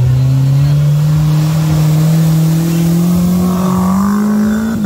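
Suzuki Jimny 4x4's engine revving hard under load as it drives through deep mud, its pitch climbing steadily throughout, with the tyres spinning and throwing mud.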